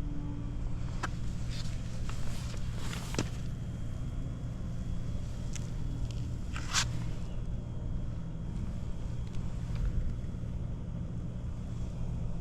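Honda Monkey Z50J's single-cylinder engine with a Hayashi 88cc top end idling steadily, free of abnormal noise by the seller's account. A few sharp clicks sound over it, the loudest about seven seconds in.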